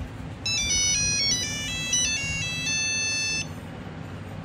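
A Nokia 2100 mobile phone plays a monophonic ringtone preview through its small speaker. It is a quick run of stepped beeping notes, about three seconds long, ending on one held note.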